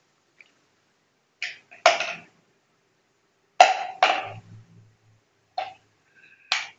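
Hard plastic sippy-cup parts being handled and knocked together and against a tile floor: about six short, sharp clacks at irregular intervals, the loudest two about two and three and a half seconds in.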